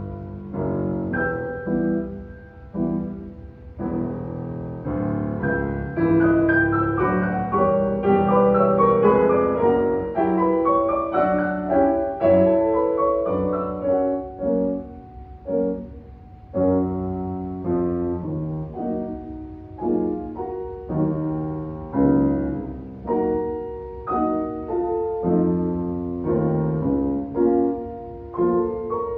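Two grand pianos, one a C. Bechstein, played together as a duo. Dense runs that climb in the middle give way to short, separated chords near the end.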